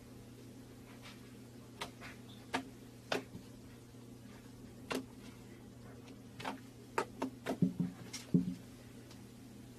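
Scattered light clicks and taps, sparse at first and coming in a quick cluster near the end, over a steady low hum.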